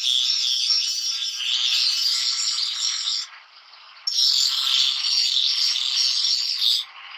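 Electric angle grinder grinding the edge of a curved steel blade, a loud rushing, scraping hiss. The grinding breaks off briefly about three seconds in and again near the end, when the disc comes off the steel.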